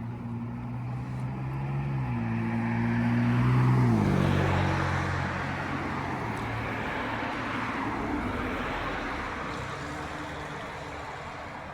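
A car passing close by on the street: its engine hum grows to a peak about four seconds in and drops in pitch as it goes past, leaving tyre and road noise that slowly fades.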